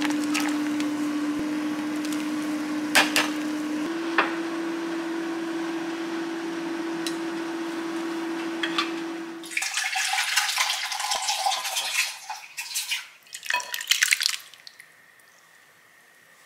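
A pot of broth simmering on a gas hob with a steady hum and a few sharp clinks as noodle pieces go in. From about ten seconds in, a wooden spatula scrapes chopped green onion and garlic off a wooden cutting board into the saucepan, with clattering and knocks, for about four seconds.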